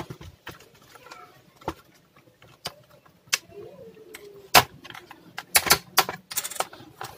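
Plastic snap clips of an Acer Aspire 4710 laptop's top case clicking and cracking loose one after another as the case is pried up and lifted off the base. The loudest snap comes about four and a half seconds in, followed by a quick run of clicks.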